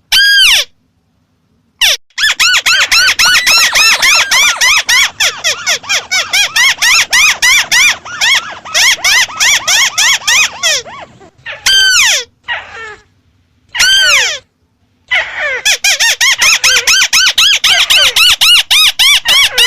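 White-browed crake calling: a few single nasal, arched notes, then long, rapid chattering runs of the same notes. There is a pause about halfway with two separate single calls, and another fast run starts near the end.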